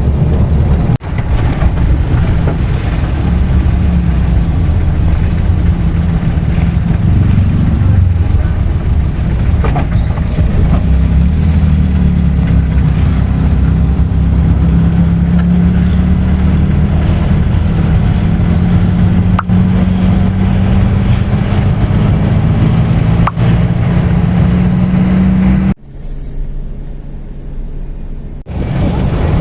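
A motor vehicle's engine running steadily with a loud low drone whose pitch drifts slowly; it drops to a quieter drone for a couple of seconds near the end, then comes back.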